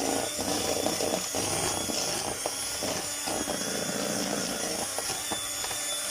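Electric hand mixer running steadily, beating almond cream in a bowl, with light knocks of the beaters now and then.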